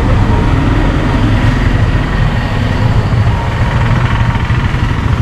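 Steady street-traffic noise with a motor vehicle engine running close by, a loud low rumble throughout.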